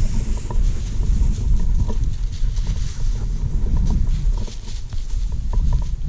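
Wind buffeting the microphone as a steady low rumble, with the swish of dry prairie grass as someone walks through it and a few faint short ticks.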